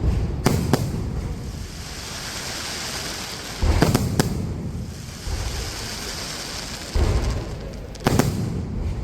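Aerial fireworks going off: a string of sharp booms with rumbling tails, several close together about four seconds in, with a steady high crackling hiss between the bursts.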